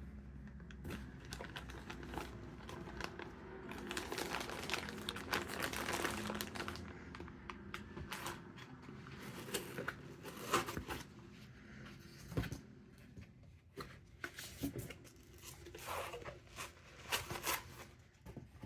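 Packaging being handled and unwrapped, crinkling and rustling, with a dense stretch in the first half and separate sharp crackles and knocks in the second half.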